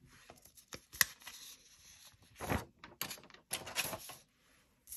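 Sheets of paper being handled on a wooden desk: a written sheet slid away and a blank one laid down, in several short rustles with scattered light clicks and taps, a sharp click about a second in.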